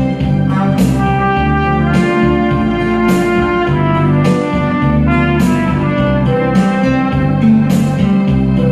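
Trumpet playing a held, melodic line over a backing track of guitar and drums, with a steady beat of about one hit a second.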